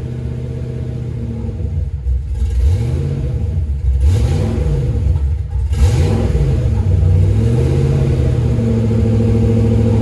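LS V8 engine in a swapped Camaro Z28 running on a cold start, blipped about four times in quick succession a few seconds in, then settling back to a steady idle. The cold engine has to be given throttle to keep running when first started.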